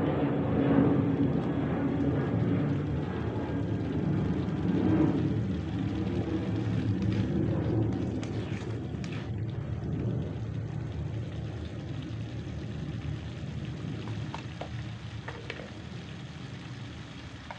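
Beef in black pepper sauce cooking in a pan, a steady bubbling sizzle with a low rumble underneath that slowly gets quieter. A few light clicks come in the second half.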